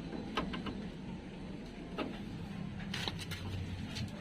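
A few scattered light clicks and knocks over a steady low hum: the handling noise of parts and tools during brake caliper work.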